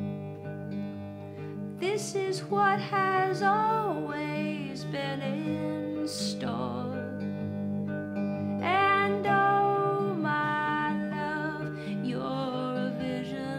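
Acoustic guitar fingerpicked steadily, with a woman's voice singing long held, gliding phrases about two seconds in, again around nine seconds, and briefly near the end.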